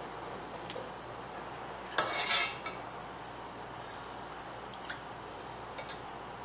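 Metal utensil knocking and clinking against a stainless steel pot while stirring, with one louder clatter about two seconds in and a few light clinks later, over a steady hiss.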